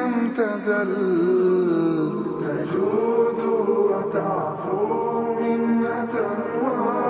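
Background music with a solo chanted vocal line, long held notes that slide slowly in pitch over a steady accompaniment.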